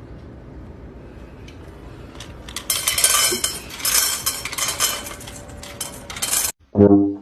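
Rapid clattering and clinking of small hard objects for about four seconds over a low hum, cutting off suddenly; a short pitched musical note follows near the end.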